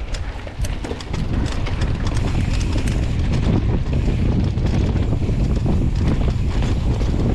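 Downhill mountain bike descending a rough bike-park trail: tyres rumbling and the bike rattling and clacking over the bumps, with wind buffeting the microphone. It gets louder about a second in.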